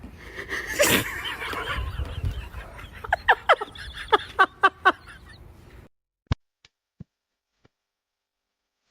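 An animal calling in a quick series of about eight short, loud calls, each falling in pitch, over about two seconds. A few sharp clicks follow, then the sound cuts off.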